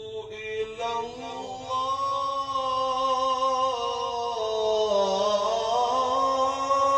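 A male Quran reciter chanting in the melodic tajweed style, drawing out one long held phrase. The pitch moves to a new note about a second in, then wavers and slides slowly while the note is sustained.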